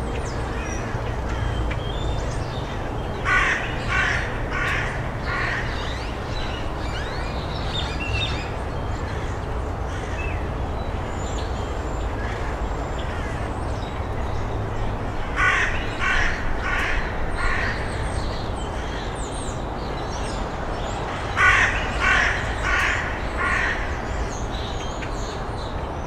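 A crow cawing in three runs of three or four harsh caws each, a few seconds in, around the middle and near the end. Faint high chirps of smaller birds and a steady low rumble run underneath.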